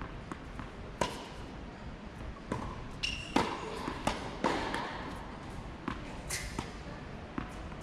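Tennis ball struck by rackets and bouncing on a hard court: about four sharp hits a second or more apart, the loudest about three and a half seconds in.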